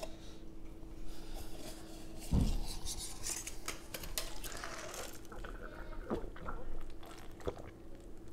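Scattered light clicks, knocks and clatter of objects being handled out of sight, with one heavier thump about two and a half seconds in, over a faint steady hum.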